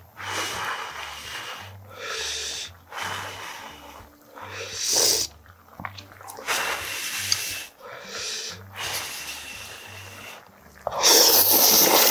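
A man blowing several short breaths over hot ramen noodles, then a loud, long slurp of the noodles about a second before the end.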